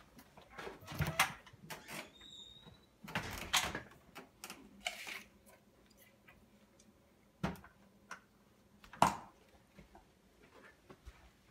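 A refrigerator door is opened and items inside are handled, giving short rustles and knocks. Two sharp knocks come later, the louder a thump about nine seconds in.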